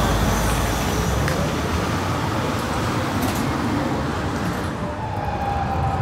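City street traffic with a tram rolling past: a steady rumble and road noise, joined about five seconds in by a faint steady high tone.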